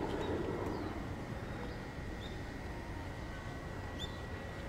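Steady low outdoor rumble with a few faint, short, high chirps scattered through it.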